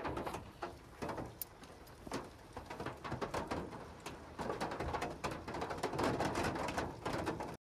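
A dog's mouth noises close to the microphone: wet, irregular chewing and licking clicks that grow louder in the second half, then cut off suddenly near the end.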